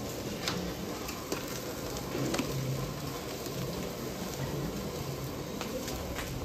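Fish and meat sizzling on a grill, a steady hiss with a few sharp clicks scattered through it.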